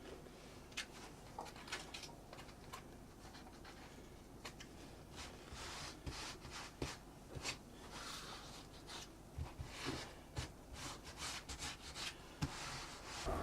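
Faint rubbing and scratching as plaster cloth is smoothed by hand over a model-railway scenery base, with irregular small clicks and crackles throughout.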